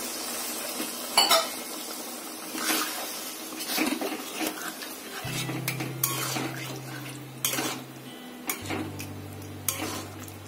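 A spatula scraping and clinking against a kadhai as chicken in wet masala is stirred, in irregular strokes, over a light sizzle from the freshly watered gravy.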